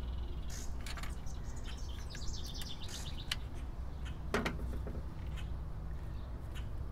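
A bird chirping in a quick high trill about two seconds in, over a steady low background rumble. A few small clicks come from wires and a screwdriver being handled in a metal electrical box.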